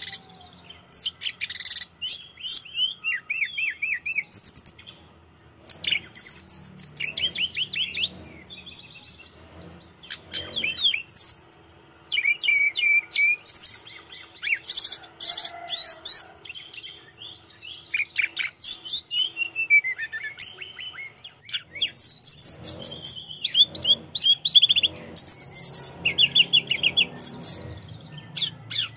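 Hill blue flycatcher in full song: a rapid run of loud, high, warbling and trilling phrases, each a second or two long, broken by short pauses.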